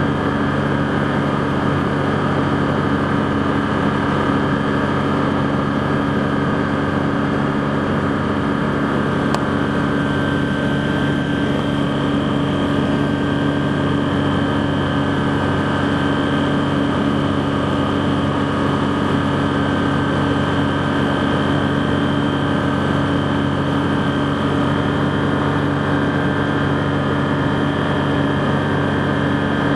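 Rotax 912 flat-four engine and propeller of a BushCaddy R-80 ultralight floatplane running at a steady drone in flight, heard from inside the cockpit.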